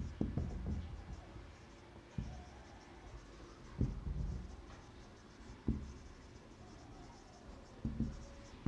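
Marker pen writing on a whiteboard: faint scratching strokes with a soft knock every couple of seconds.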